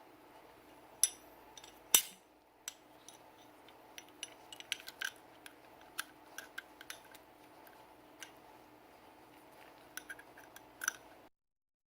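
Sharp clicks and light taps of hard parts being handled while a Sig Sauer P320 pistol is cleaned: two loud clicks about a second apart, then a run of small scattered clicks, before the sound cuts off suddenly near the end.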